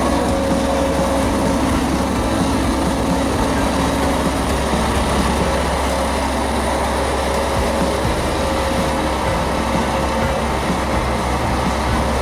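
Snow groomer running steadily: a continuous heavy mechanical drone with a deep rumble and a few steady whining tones.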